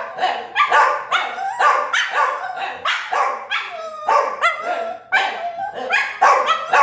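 A dog barking excitedly in a rapid, unbroken string, about two to three loud barks a second.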